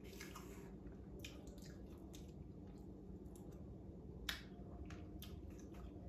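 Faint sounds of a person eating gumbo: chewing, with scattered light clicks of a metal spoon in a ceramic bowl, one sharper click about four seconds in.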